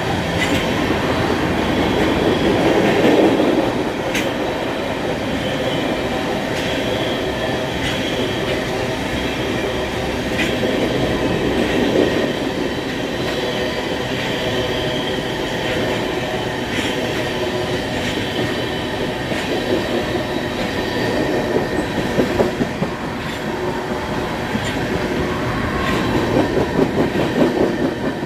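Union Pacific freight train of tank cars rolling past: a steady rumble of steel wheels on rail with occasional sharp clicks over the rail joints, swelling a little now and then.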